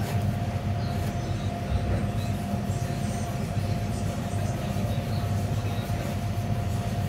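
Steady low machine rumble with a constant whine above it.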